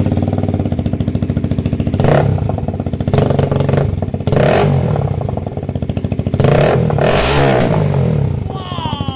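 KTM RC 200 BS6's single-cylinder engine running with its exhaust removed: a raw, open-header sound of rapid firing pulses, blipped up in short revs several times.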